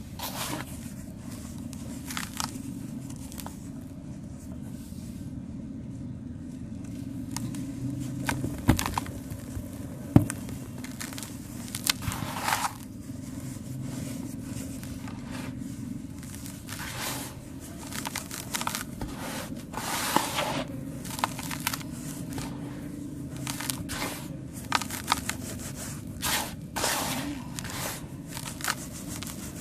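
Dried sand-cement being crushed and crumbled: irregular gritty crunches and crackles, with two sharper snaps about nine and ten seconds in.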